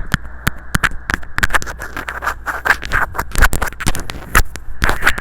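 Mouth nibbling and rubbing directly on a microphone: a rapid, irregular run of sharp clicks over a constant scratchy rustle.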